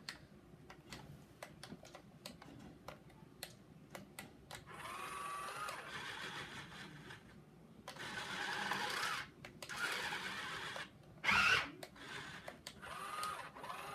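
Small electric gear motors of a toy RC skid-steer loader whining in several short runs, their pitch bending as they drive the arm and bucket. Light clicks come before the first run, and one short louder noise about eleven seconds in.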